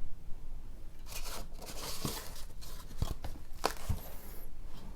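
Rustling and crinkling of a lens box's packaging being handled and opened to take out the lens, with a few sharp clicks and knocks.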